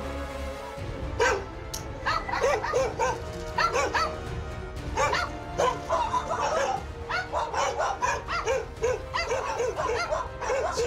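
Dogs barking in a rapid run of short barks, several a second, over background music.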